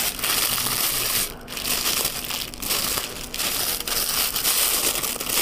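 Clear plastic packaging crinkling and crackling as hands pull and crumple it off a new fishing rod, with a few brief pauses.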